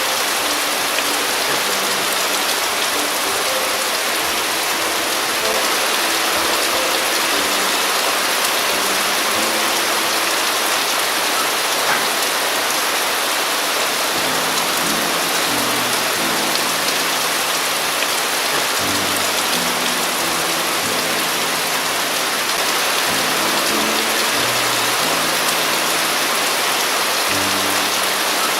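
Steady, heavy rain pouring down and pattering on surfaces.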